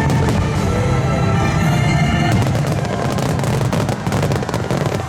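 Star mine fireworks bursting over music. About two seconds in, a dense run of sharp cracks and pops from many shells breaking in quick succession takes over from the music.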